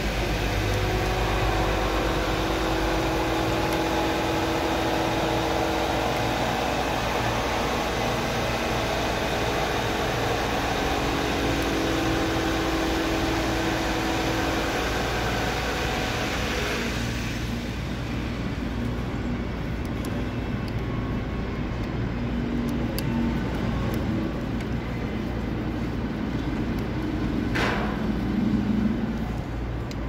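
A steady engine-like drone with a few held tones, which drops away about halfway through and leaves quieter background noise with a few faint clicks.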